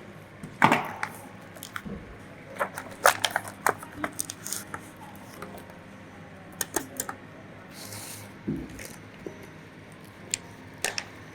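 Irregular light clicks and knocks of handling work over a steady low hum, with a short hiss about eight seconds in.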